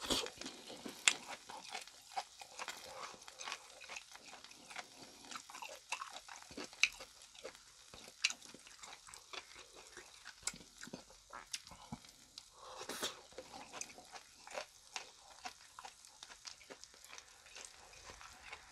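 Close-miked chewing of grilled chicken skewers (yakitori), a run of irregular soft mouth clicks and smacks.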